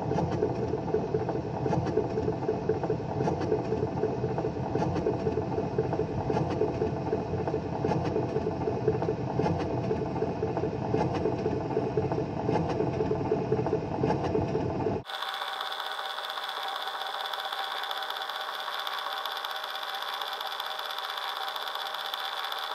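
Columbia wind-up gramophone's clockwork motor running: a steady mechanical whirr with faint ticks. About fifteen seconds in it cuts abruptly to a thinner hiss with a steady high tone, as the record spins before the music begins.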